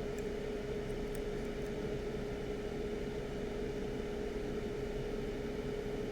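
Steady whirring hum of a small electric fan running on the repair bench, with one constant tone. A few faint light clicks come in the first two seconds.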